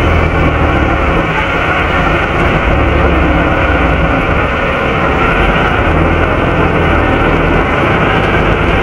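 Volvo B7RLE bus's diesel engine running with its radiator cooling fan blowing, heard from inside the rear of the bus: a loud, steady rushing drone over the engine's low hum.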